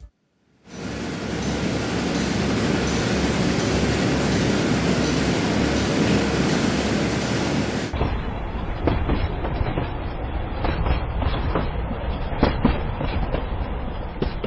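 Railway cars rolling on track: a steady running noise for several seconds, then, after an abrupt cut, a duller rattle with many irregular metal clanks and knocks.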